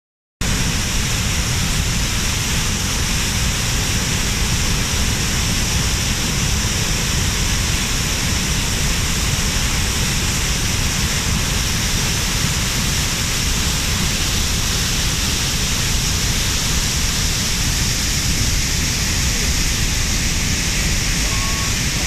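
Ennistymon Cascades, a broad, low waterfall in spate, with heavy brown floodwater pouring over it in a loud, steady rush of water.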